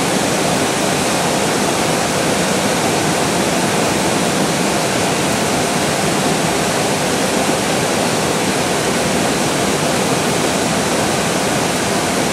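Airbus A320 cockpit noise in flight: a steady, even rushing hiss of air with no changes in level or pitch.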